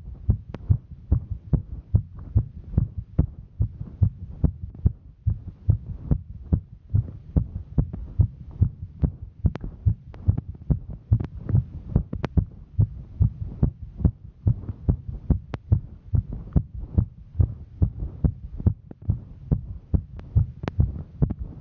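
A woman's heartbeat, heard as a steady, rapid train of low thuds at about two a second, quickened by the exertion of hiking.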